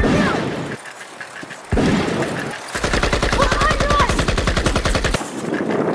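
Gunfire sound effects for a toy gun: one shot a little under two seconds in, then a long rapid burst of automatic fire lasting about two and a half seconds.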